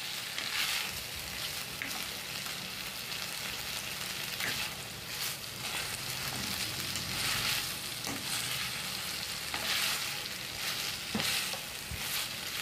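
Boiled pork pieces and sliced green chillies sizzling in a frying pan while a spatula stirs them, scraping through the food in repeated strokes, with a sharp knock of the spatula against the pan near the end.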